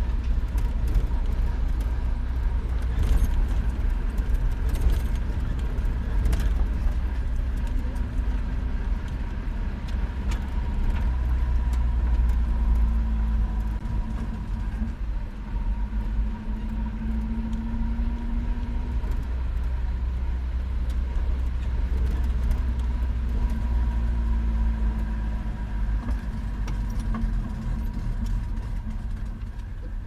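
Car driving on a gravel dirt road, heard from inside the cabin: a steady engine hum over a heavy low road rumble, with scattered clicks and rattles.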